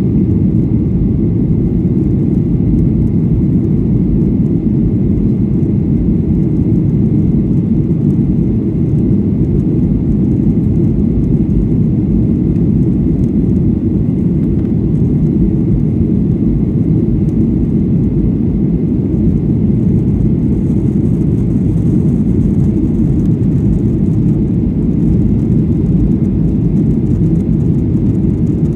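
Steady low noise of a Boeing 737-800's CFM56 engines and rushing airflow, heard inside the passenger cabin during the climb after takeoff.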